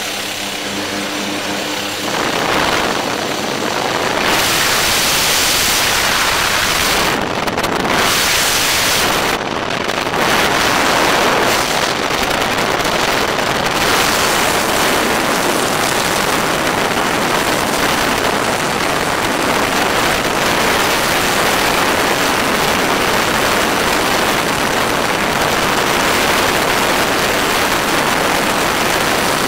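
Skydiving freefall: a steady rush of wind over a camera microphone, taking over about two seconds in from the drone of the jump plane's engine at the open door.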